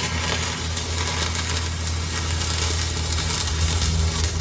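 Flux-core arc welding a vertical-up groove pass: a steady crackling, sizzling arc over a constant low hum.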